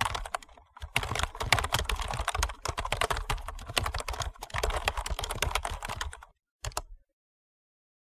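Fast typing on a computer keyboard: a dense, uneven run of key clicks that stops about six seconds in, with one short last flurry of keystrokes just after.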